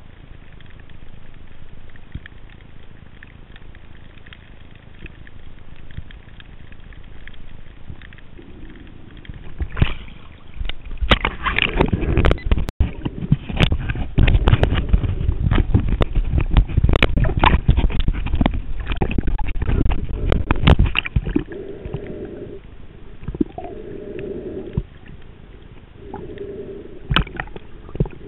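Underwater water noise at a head-mounted camera on a snorkeler: a faint steady hiss, then about ten seconds of loud crackling, sloshing and gurgling water. A few short low humming tones follow near the end.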